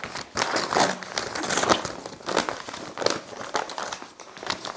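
Stiff brown paper mailing bag crinkling and rustling in irregular bursts as hands grip it and pull it open.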